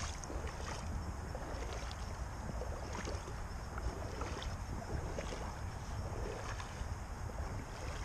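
Steady low rumble of wind buffeting the microphone, with scattered light crackles and rustles.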